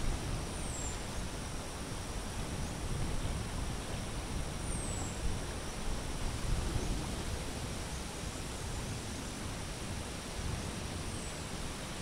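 Steady outdoor background noise, an even hiss with a low rumble, with three faint, short, high chirps falling in pitch, a few seconds apart.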